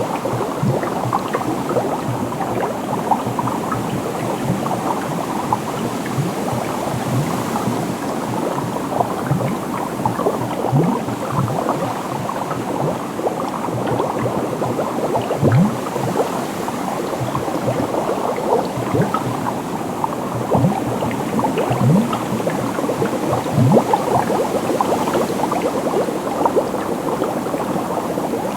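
Running water bubbling and gurgling steadily, full of small bubbles that each rise quickly in pitch.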